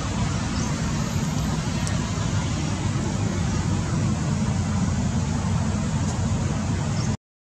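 Steady low rumbling background noise with no distinct events, stopping abruptly at the very end.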